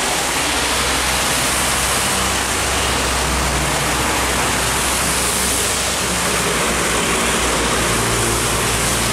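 Heavy trucks passing on a wet road, their diesel engines giving a steady low drone under a continuous hiss of rain and tyres on the wet asphalt.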